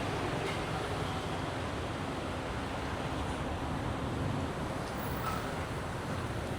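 Steady street traffic noise from passing vehicles, an even hum without distinct events.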